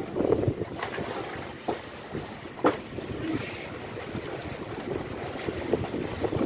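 Steady wind and boat noise on an open deck, with scattered knocks and clatter of scuba tanks and dive gear being handled.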